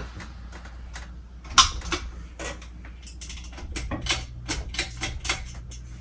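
Hunter Original ceiling fan's motor humming low and steady, with a run of irregular sharp clicks and taps over it; the loudest click comes about one and a half seconds in, and they bunch together between about four and five and a half seconds in.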